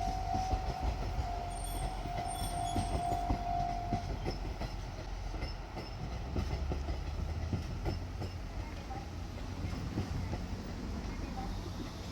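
Diesel train running on the tracks: wheels clicking over rail joints under a low engine rumble, with a steady high tone that stops about four seconds in.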